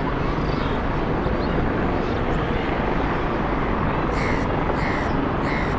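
A formation of military helicopters flying past low, their rotors and engines making a loud, steady, dense noise.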